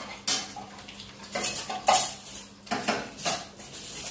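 Chopsticks and dishes clinking against ceramic bowls and plates: about half a dozen sharp, irregular clinks and scrapes.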